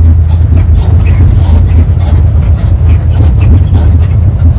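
Steady, loud low rumble of a moving vehicle, heard from inside the cabin while it travels along a highway.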